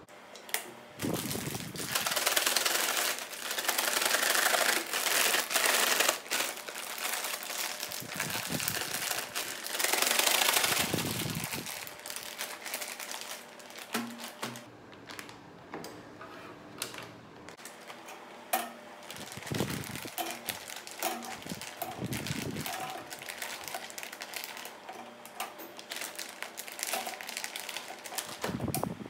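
A plastic food bag crinkling as it is handled and rummaged through, in two long loud stretches near the start and around ten seconds in, then in lighter rustles with scattered clicks.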